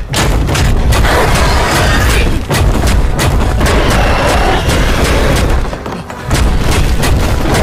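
Animated action sound effects of a creature attack: loud, continuous rumbling booms and crashing impacts, easing briefly about six seconds in before surging again.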